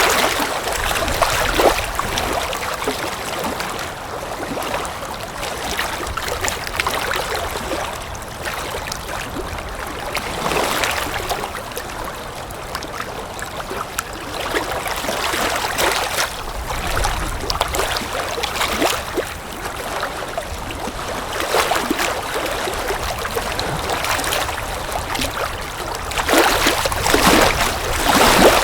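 Rushing water noise, swelling and easing every few seconds.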